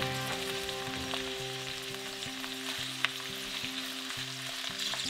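Food frying in oil in a nonstick frying pan: a steady sizzle, with one sharp tap about three seconds in.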